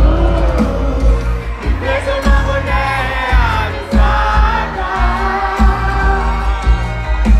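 Live pop music played over a concert sound system: a singer's voice gliding over a steady, heavy bass beat.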